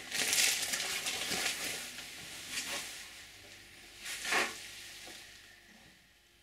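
Crinkling and rustling of a small plastic bag as parts are handled, in irregular bursts that die away near the end.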